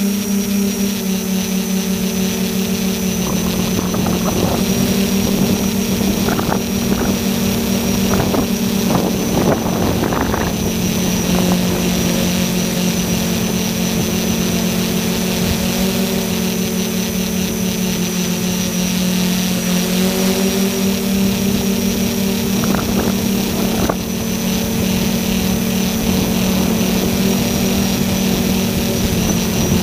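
Fortis Titan tricopter's three SunnySky 1400KV brushless motors spinning Graupner propellers, a steady buzzing hum as heard from a camera on board the craft in low flight. It surges briefly several times between about 3 and 11 seconds in, and again around 22 to 24 seconds in.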